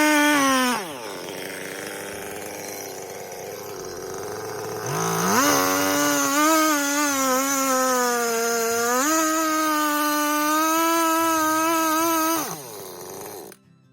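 A power saw cutting timber for sawmill bunks. Its motor whines at speed, winds down less than a second in, spins back up about five seconds in and runs again, rising in pitch around nine seconds, then winds down near the end.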